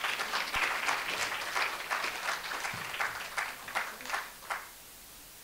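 Audience applauding, thinning out and dying away about four and a half seconds in.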